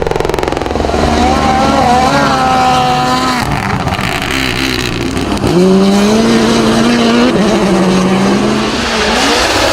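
Rally car engine at full throttle, its pitch climbing and then dropping several times through gear changes and lifts, with a sharp drop and quick rise about halfway through.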